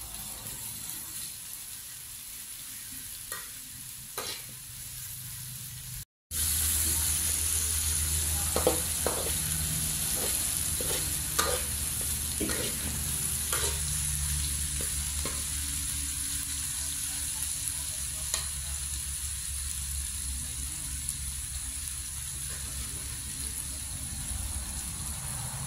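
Chillies, lemongrass and lime leaves sizzling in an aluminium wok while a metal spatula stirs them, scraping and clicking against the pan. The sound drops out briefly about six seconds in, and the sizzle is louder after that.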